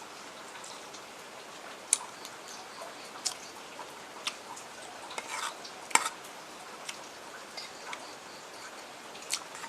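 Close-up eating of boiled noodles and quail meat: scattered sharp clicks of utensils and mouth sounds over a steady faint hiss.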